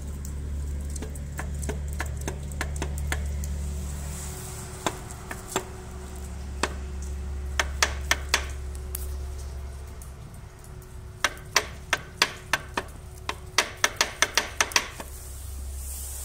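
Hyundai D4BF (Mitsubishi 4D56-type) diesel engine running with a low steady hum and sharp, uneven knocks over it, which come in a fast cluster of about three to four a second near the end. The knock is the sign of a cracked cast-iron crankshaft.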